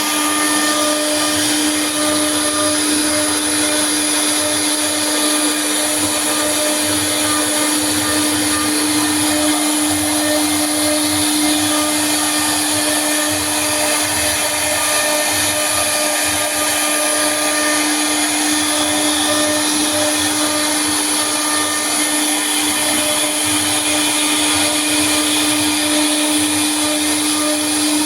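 CNC router spindle running steadily at high speed, an unbroken motor whine that holds one pitch throughout.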